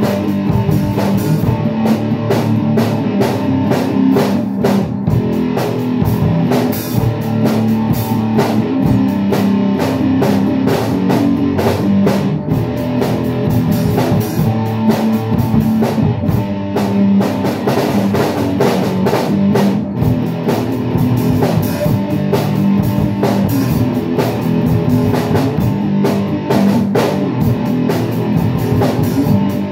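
Electric guitar and drum kit playing rock music together: strummed guitar chords over a steady drum beat with cymbals.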